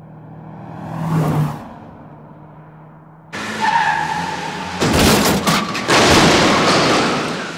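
Car sound effects: a car drives past, swelling and fading about a second in. Then tyres screech, a crash hits with several sharp bangs about five seconds in, and a loud rush of noise follows, tailing off near the end.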